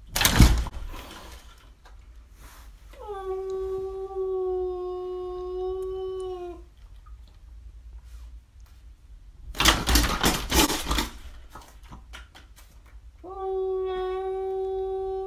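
Domestic cats facing off through a window glass. There are two long, drawn-out yowls, each held on one steady pitch for three to four seconds, the second starting near the end. Between them come two loud, harsh noisy bursts with knocks, the first as the cat outside leaps against the glass.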